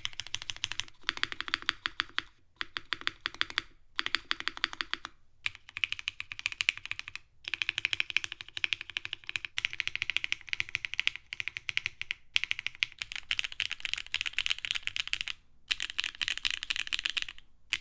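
Fast typing on a Mode Sonnet 2024 mechanical keyboard with lubed and filmed Gateron Milky Yellow linear switches on a polypropylene plate with no foam, and GMK keycaps. Runs of rapid keystrokes a few seconds long, broken by brief pauses.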